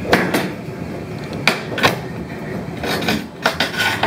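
Hand tools knocking and clinking against an aquarium's frame and glass: about eight sharp, irregular knocks.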